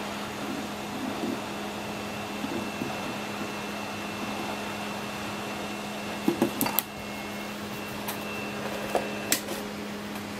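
Heat gun blowing steadily, a fan hum with a faint high whine, shrinking heat-shrink tubing over soldered battery leads. A few light clicks and knocks about six seconds in and again near nine seconds.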